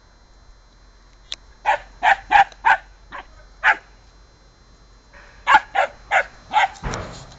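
A puppy yapping in play at a cat: a quick run of about six short, high-pitched barks, a pause of over a second, then another quick run of about five. A brief rush of noise follows the last bark near the end.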